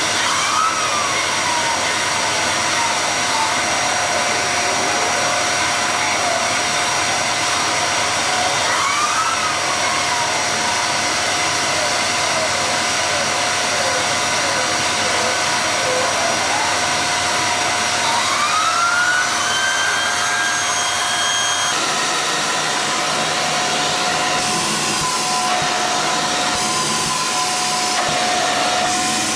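Hoover Xarion bagless cylinder vacuum cleaner running on carpet. Its steady whine slides up and down in pitch several times, and the sound changes character a little after two-thirds of the way in.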